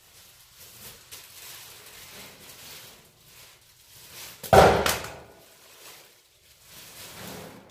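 A single loud thud about four and a half seconds in, amid quieter rustling and handling noises, as things are moved out of a storage unit.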